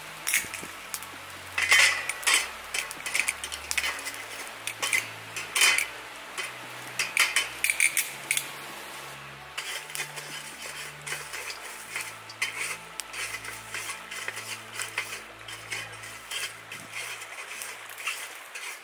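Metal tongs clinking and scraping on a 14-inch Weber Smoky Joe charcoal kettle grill as the coals are arranged and the cooking grate is set in place: irregular metallic clinks throughout, with a few louder clanks.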